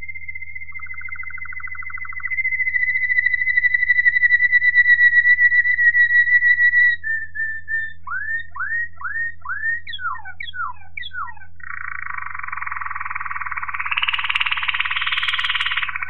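Waterslager (Malinois) canary singing: one long held whistled note for about seven seconds, then a few short notes and a run of quick falling glides, then a fast rattling trill over the last few seconds. A faint steady low hum runs underneath.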